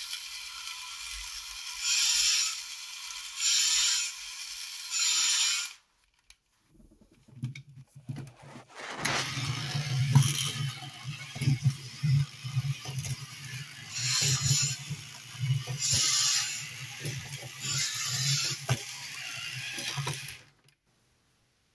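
Battery motor and plastic gearbox of an Iron Kong Zoids toy running, a steady mechanical whirr with gear clicking and three loud ratcheting bursts in the first few seconds. After a short break it runs again with a low motor hum, dense clicking and louder rasping bursts about every two seconds.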